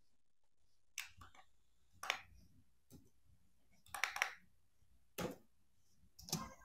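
Faint scattered clicks and taps, roughly one a second, over quiet room tone.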